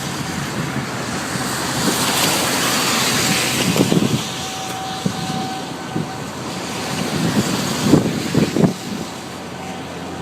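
Storm wind rushing over the microphone, with a swell of hiss about two seconds in and short low buffets from gusts a few times later.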